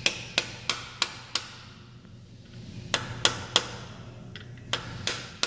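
Hammer tapping a socket used as a driver to seat a bearing: sharp metallic taps with a short ring, about three a second, in three runs of five, three and three with brief pauses between.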